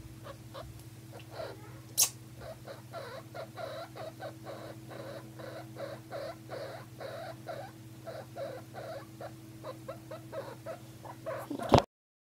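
Guinea pig making a long run of short repeated squeaks, about two or three a second, over a steady low hum. There is a sharp click about two seconds in, and a louder burst just before the sound cuts off near the end.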